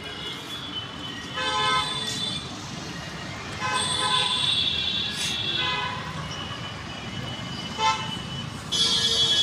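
Vehicle horns honking in street traffic: about five short toots, the longest near the middle and another near the end, over a steady hum of road noise.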